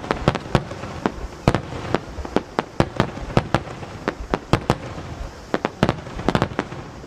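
Aerial fireworks shells launching and bursting in quick succession: an irregular run of sharp bangs, about three or four a second, with a continuous wash of noise between them.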